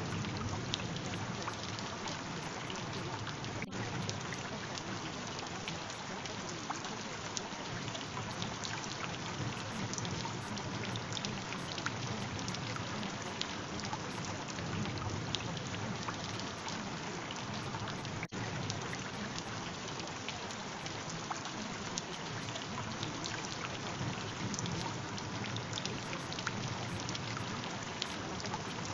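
Steady rain: an even hiss sprinkled with fine drop ticks, broken by two split-second gaps.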